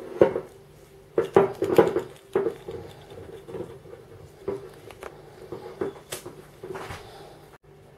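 A glass wine bottle handled on a table and its metal screw cap twisted: a flurry of sharp clicks and knocks about a second in, then lighter clicks and taps over the next few seconds.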